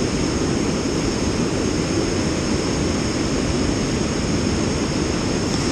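Steady rushing of a fast-flowing rocky stream pouring over rapids and a small waterfall, an even, unbroken wash of water noise.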